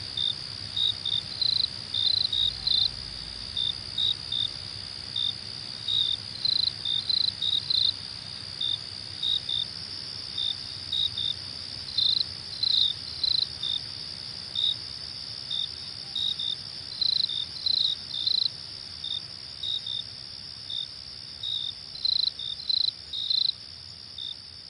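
Crickets chirping: a steady high trill, with louder short chirps over it that come in irregular clusters of a few at a time.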